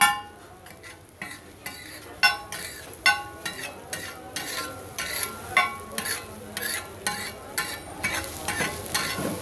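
Metal spatula scraping and striking a large flat metal griddle (tawa) while egg bhurji is stirred and chopped, about two short ringing clanks a second, over the faint sizzle of the egg frying.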